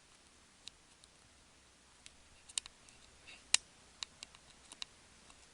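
Faint, scattered small clicks and taps, about a dozen at uneven intervals, the loudest about three and a half seconds in.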